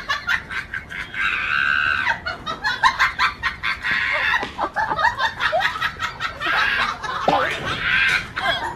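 Chickens squawking and clucking in agitated alarm, with a string of short clucks broken by three longer, harsher squawks: about a second in, around four seconds in, and near the end.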